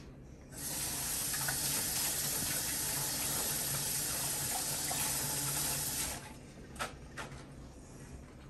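Kitchen faucet running full into the sink, turned on about half a second in and shut off about six seconds in, followed by a few light knocks.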